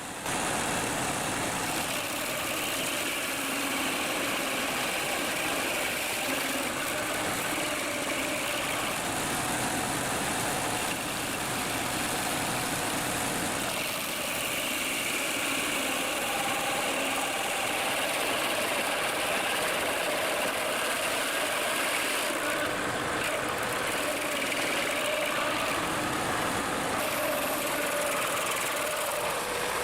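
Stump grinder running steadily: an even engine drone under a hiss, with faint tones that shift a little and no distinct knocks.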